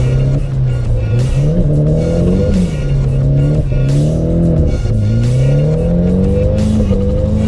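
Nissan S13's engine heard from inside the cabin, revving up and dropping back several times in a row while the car drifts, with background music over it.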